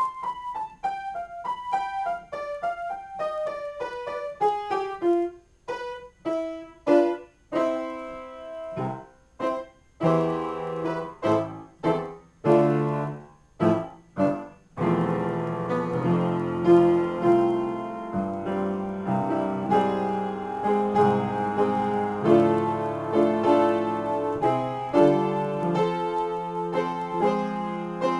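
Solo piano improvisation. It opens with a falling run of single notes, then moves to detached chords struck with short gaps between them. From about halfway through it becomes a dense, continuous run of full chords.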